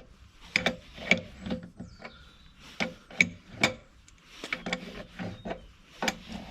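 Adjustable spanners working a tight nut on a steel plough depth stop: clusters of sharp metal clicks and knocks, several a second, as the spanners are repositioned and turned.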